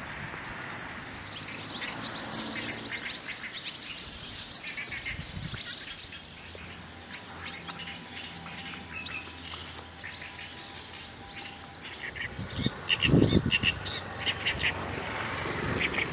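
Barn swallows chirping and twittering in a large flock gathering to roost in reeds: many short, high calls overlapping, thickest in the first few seconds and again near the end. A brief low rumble stands out about three-quarters of the way through.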